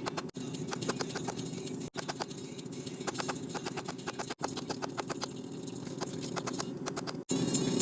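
Hammer blows on hot leaf-spring steel at an anvil, coming in quick runs of sharp strikes over a steady forge hum. The sound breaks off and jumps at several hard cuts.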